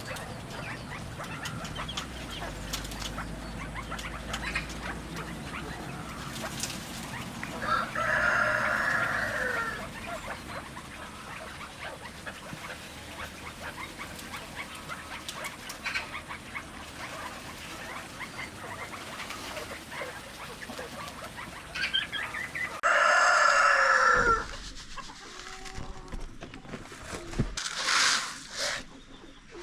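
Free-range chickens clucking and calling, with a rooster crowing twice: once about eight seconds in and again about twenty-three seconds in.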